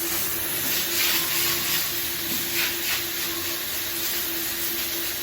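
Milking shed machinery running: a steady hiss with a constant low hum underneath.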